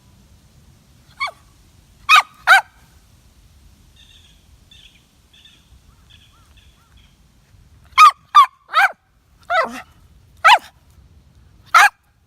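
Toy poodle yapping in short, sharp, high-pitched barks: two about two seconds in, then a quicker run of six from about eight seconds on.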